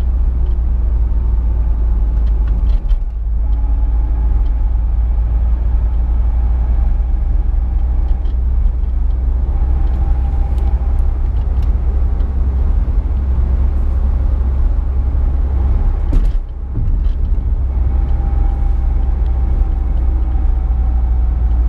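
Cabin sound of a 1998 VW Jetta TDI driving along: the 1.9-litre turbo-diesel running at about 1,800–1,900 rpm under the steady low rumble of the road. The sound dips briefly twice, about three seconds in and again past the middle.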